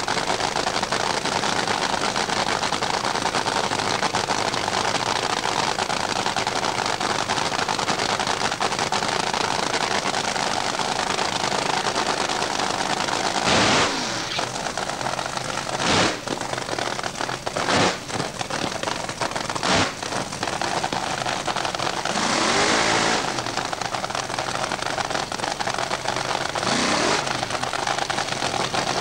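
Funny car drag-racing engine running on the start line with a loud, crackly idle. From about halfway through it is blipped sharply several times, with a longer rev rising and falling in pitch about three-quarters of the way in and another short blip near the end.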